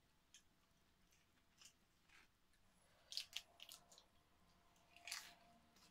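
Faint crisp crunching and crackling of someone eating by hand, handling lettuce leaves and fried salmon, in short clusters about three seconds in and again near five seconds.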